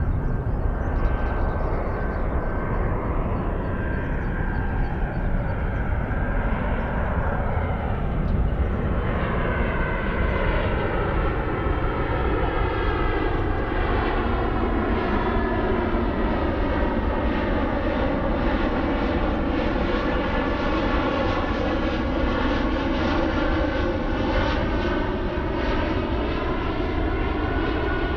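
Airbus A320-200 airliner flying low on approach with its landing gear down: a steady jet-engine rumble whose tone sweeps down and back up as the aircraft passes over.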